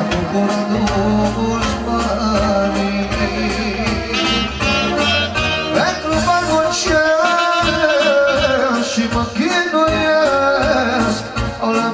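A male vocalist singing live into a handheld microphone in a wavering, ornamented style, over amplified keyboard accompaniment with a steady beat.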